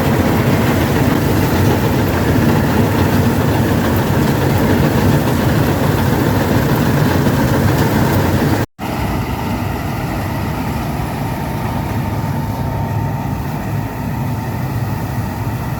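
A rice combine harvester's diesel engine and threshing machinery running steadily under load. The sound cuts off abruptly about two-thirds of the way through and picks up again a little quieter.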